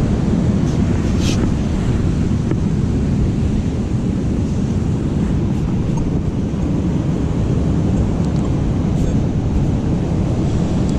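Steady wind buffeting the microphone over the rush of ocean surf on the beach.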